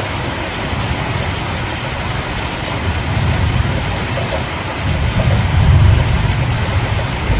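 Steady heavy rain falling, with a low rumble underneath that swells about five seconds in.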